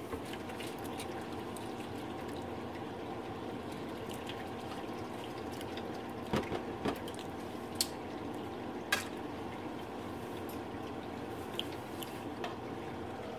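Lemon butter sauce simmering in a nonstick frying pan, a steady low bubbling and sizzling, with a few sharp clicks and pops between about six and nine seconds in.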